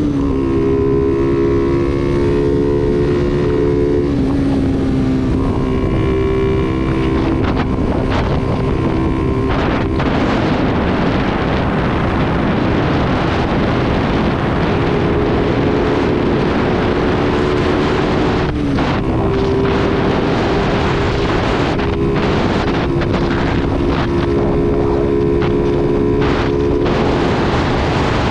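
Motorcycle engine running steadily at cruising speed, with heavy wind noise on the microphone. The engine note drops under the wind for a few seconds midway, then comes back.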